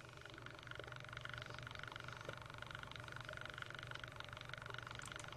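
Quiet room tone: a faint steady hum with a few faint ticks.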